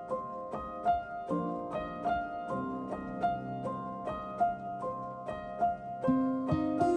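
Background music of light plucked notes, about three a second, with deeper notes joining about six seconds in.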